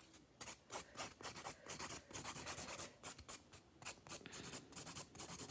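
A 100/180 grit hand nail file scraping back and forth over a gel-coated fingernail in quick, short strokes, filing away old gel product.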